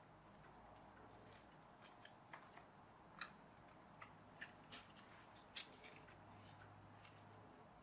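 Faint small clicks and taps of the press-out pieces of a no-glue toy plane kit being handled and pushed together, about ten sharp ticks mostly between two and six seconds in, over a faint steady hum.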